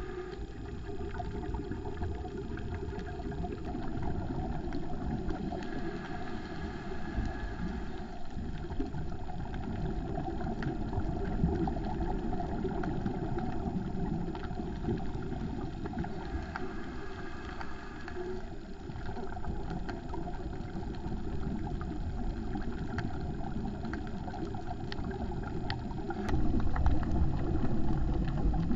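Underwater noise heard through a GoPro's waterproof housing on a reef dive: a steady low rumble with scattered faint clicks, growing louder near the end.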